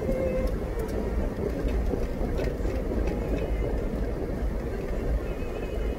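Steady low rumble of road and engine noise inside a moving car's cabin, with a few faint ticks.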